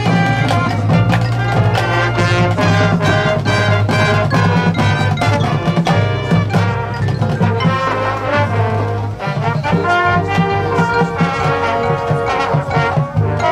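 Marching band playing a loud, brass-led passage of its field show, with trombones and trumpets over drums and percussion keeping the beat.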